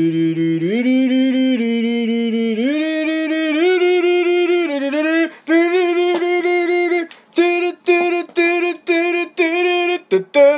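A single voice singing a melody. It holds long notes that step up and down in pitch for about five seconds, then breaks into short clipped notes, a few each second.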